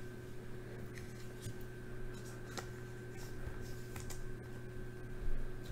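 Light clicks and soft rustles of glossy trading cards being slid and flipped by hand, over a steady electrical hum.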